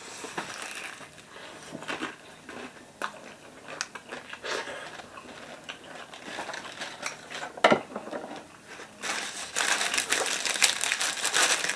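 Close-up eating sounds: chewing shawarma and the crinkle of its paper wrapper, with scattered small clicks and one sharper click a little before eight seconds. About nine seconds in, a denser paper rustling starts and carries on.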